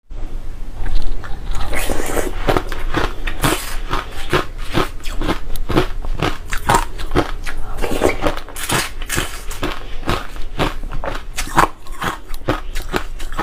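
Crushed ice being bitten and chewed close to the microphone: a rapid run of crisp, loud crunches, several a second.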